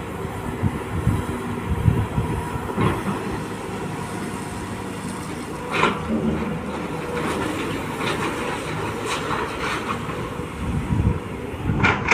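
Volvo excavator's diesel engine running steadily under work, with scattered clanks and rattles of the bucket against iron ore, the loudest near the middle and again near the end.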